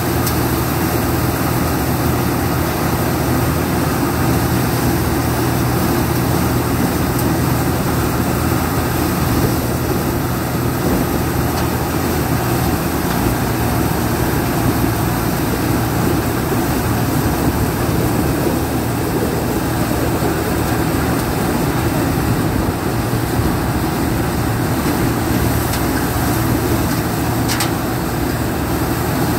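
A tractor engine driving a stationary grain thresher, running steadily under load as straw is forked into the machine.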